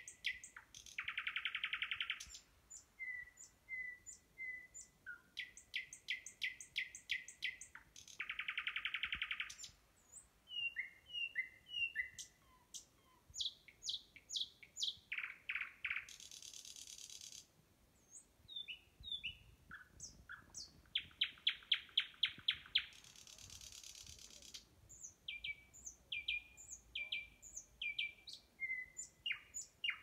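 A nightingale singing close by: a long run of varied phrases made of rapid repeated notes, dry buzzy rattles, short whistles and hissing trills, each phrase separated by a brief pause.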